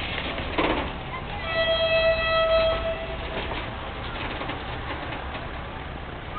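Locomotive horn sounding one steady note for about two seconds over the low rumble of the passing freight train, with a short rattle of the wagons just before it.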